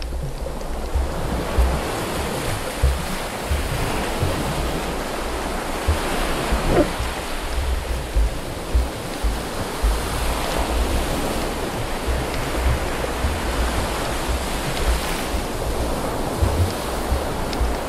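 Muffled rushing water noise from a camera held underwater while snorkeling, with irregular low thumps from water movement against the housing.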